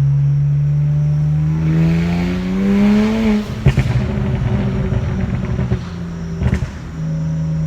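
BMW 335's straight-six engine and exhaust idling, then revved once with the pitch rising for about two seconds. On release it crackles and pops on the overrun, with another sharp pop near the end, then settles back to a steady idle.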